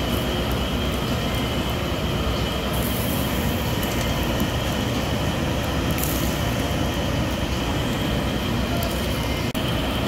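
A steady, unbroken low rumble with a hiss over it, of the kind a moving vehicle makes.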